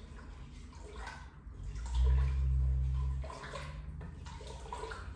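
Wooden spoon stirring a thin lentil and vegetable soup in a multi-cooker's metal pot, the liquid moving with soft watery sounds. About two seconds in, a low rumble lasts a little over a second and is the loudest sound.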